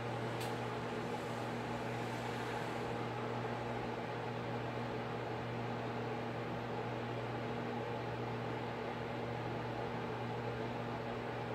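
Steady machine hum with a constant low drone and a faint hiss, unchanging throughout; a faint tick about half a second in.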